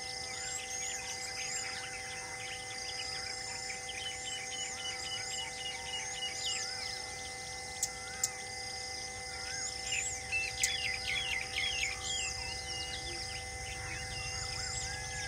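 Many small birds chirping and calling, busiest about ten seconds in, over a steady low hum, with two or three sharp clicks about eight seconds in.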